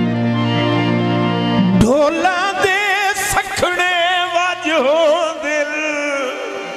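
Harmonium playing held chords. About two seconds in, a man's singing voice comes in over it with long, wavering sustained notes.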